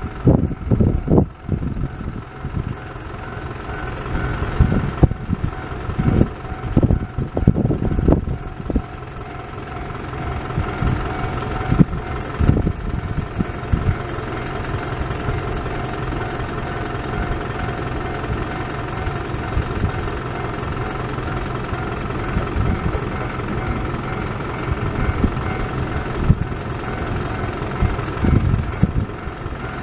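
Railway level crossing warning bell ringing steadily while a train passes, with gusts of wind buffeting the microphone in the first half.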